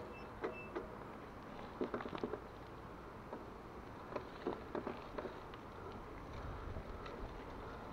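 Mountain bike rolling along a paved road: a low steady rumble with scattered, irregular clicks and rattles. Wind noise on the microphone grows near the end.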